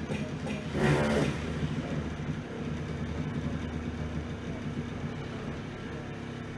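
Building-work machinery running with a steady low hum, and a short, loud burst of noise about a second in.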